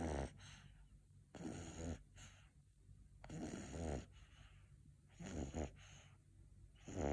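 Sleeping corgi puppy snoring faintly, a rattling snore on each breath about every two seconds.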